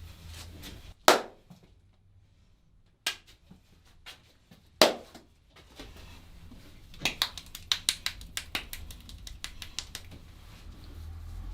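Sharp cracks and snaps from a barber's head massage and cracking routine: three separate loud snaps, the first the loudest, then a quick run of a dozen or so crisp clicks starting about seven seconds in and thinning out.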